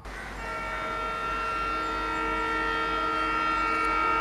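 Indian Railways ALCO diesel locomotive's horn sounding one long, steady multi-tone blast as the train approaches, starting about half a second in, over a low rumble.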